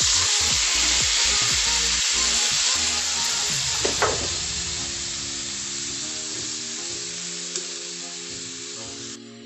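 Chopped beef innards dropped into a hot oiled wok, frying with a loud sizzle that starts suddenly, slowly dies down, and drops away near the end, with a short knock about four seconds in.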